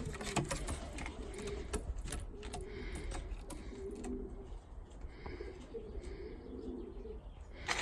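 Domestic pigeons cooing over and over in low, warbling calls, with a few sharp clicks among them and a steady low hum underneath.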